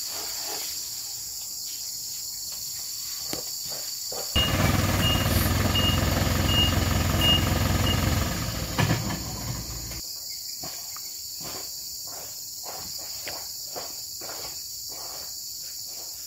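A steady, high-pitched chorus of insects runs throughout. About four seconds in, the engine of a small lorry loaded with oil palm fruit bunches comes in loud, with a short high beep repeating about once a second, and cuts off suddenly about ten seconds in.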